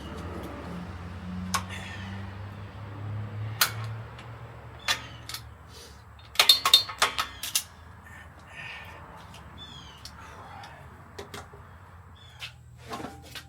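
Scattered sharp knocks and clanks, with a quick run of ringing clanks about six to seven and a half seconds in, over a low hum that dies away after about four seconds.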